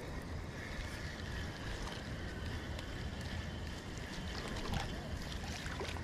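Wind rumbling steadily on the microphone, with a few faint light clicks and ticks scattered through it.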